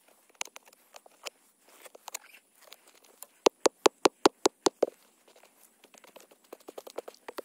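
Small hand pick chopping into hard, dry soil: scattered light knocks and scrapes, then a quick run of about nine sharp strikes, around seven a second, starting about three and a half seconds in, and lighter, faster chopping near the end.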